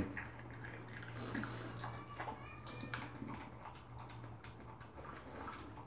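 French bulldog eating dry kibble mixed with tuna from a metal bowl: soft, irregular clicks and crunches of chewing and of food knocking against the bowl.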